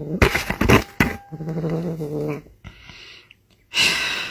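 A cat gives two drawn-out, low meows, the second held for about a second, with bursts of rustling noise around them and a loud noisy burst near the end.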